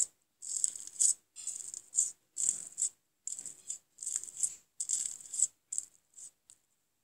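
Slime being pressed and squished by hand, crackling and popping in short bursts about every half second to second, with a few quicker, fainter clicks near the end.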